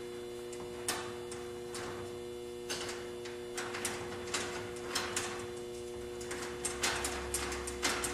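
Irregular small clicks and taps of metal on the aluminium door frame as a nut is worked onto a T-bolt behind the mounting bracket, coming faster near the end, over a steady electrical hum.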